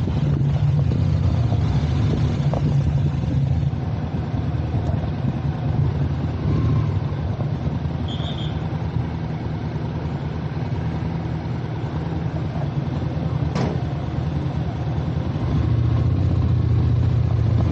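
Motorcycle engine running while the bike is ridden, with road noise. It is louder for the first few seconds and again near the end, softer in between.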